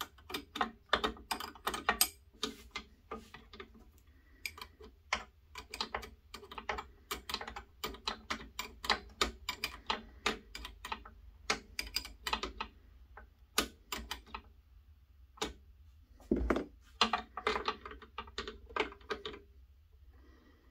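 Small ratchet wrench clicking in quick runs with short pauses as nuts and hydraulic hose fittings are tightened, with one heavier knock about three-quarters of the way through.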